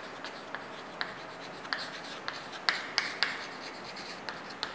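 Chalk writing on a green chalkboard: a run of irregular sharp taps and short scratchy strokes as a heading is written out.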